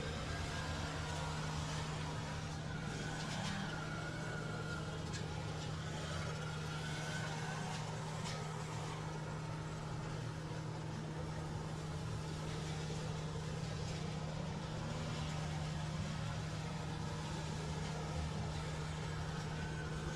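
An engine running steadily at one speed, a constant hum with no revving.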